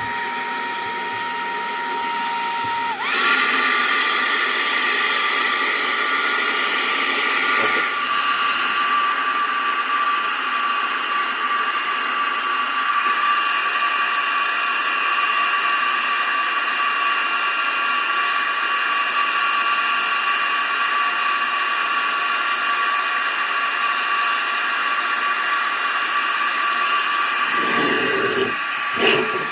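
Electric hot-air blower running steadily with a whining motor tone that steps up in pitch about three seconds in, blowing heated air into a truck's turn-signal and side-marker lamp housing to drive out trapped moisture.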